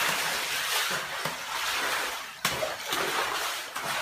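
Floodwater sloshing and splashing as a broom sweeps it across a tiled floor, with a sharp knock about two and a half seconds in.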